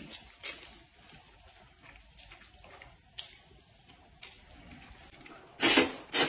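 People slurping and chewing noodles: scattered soft wet sucking and smacking sounds, then a loud slurp near the end as a big mouthful of noodles is drawn in.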